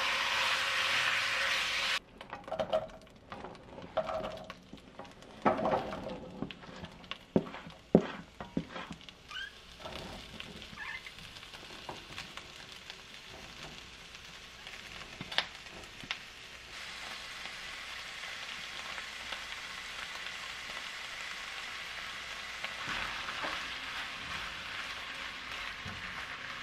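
Beef cubes sizzling in a nonstick frying pan, with a spatula scraping and knocking against the pan as they are stirred: a run of sharp strokes in the first third. Later a steadier sizzle as the beef and onion pieces fry together.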